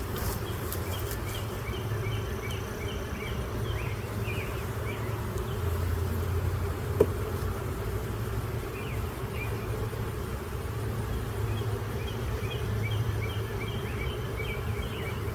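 Honey bees buzzing steadily around an open hive, a continuous low hum, with a single short click about seven seconds in.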